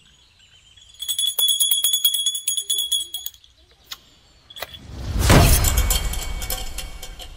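Edited-in sound effects: a bell-like jingle of high ringing tones with rapid clicks for about two seconds, then a loud whoosh about five seconds in that swells and fades away.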